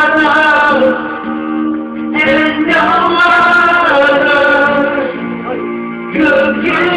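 A song with singing voices over instrumental backing, the sung notes held and wavering in pitch.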